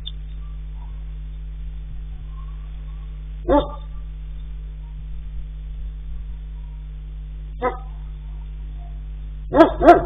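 A dog barking off and on over a security camera's steady low hum. There is a single bark about a third of the way in, another past the middle, then a quick run of three or four barks near the end.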